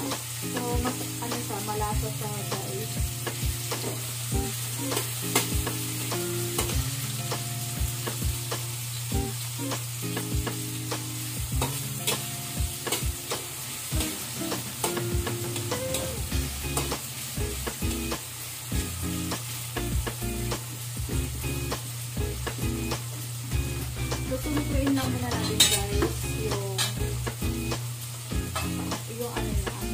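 Onion and garlic sizzling in hot oil in a metal wok, stirred with a metal spatula that clicks and scrapes against the pan again and again.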